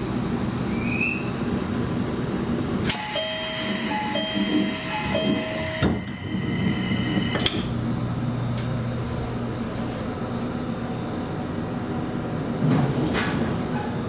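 JR Kyushu 787 series door chime: a two-note falling chime sounded three times, about a second apart, over a loud rush of air as the sliding doors close. A couple of knocks follow as the door shuts, then the train's steady running noise.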